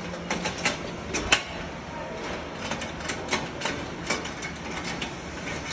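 Irregular light metallic clicks and knocks as the clamp knobs on a stainless-steel multi mill's lid are unscrewed by hand to open the grinding chamber, with one sharper knock a little over a second in.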